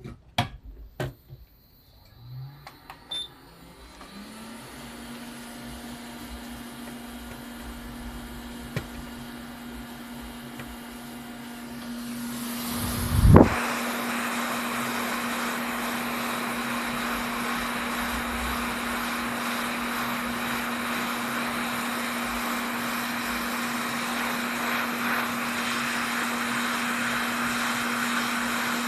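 A few clicks, then a small electric motor spins up with a rising hum and runs at a steady pitch, with rushing air getting louder. About 13 seconds in there is a short loud surge, after which the airflow runs strong and steady.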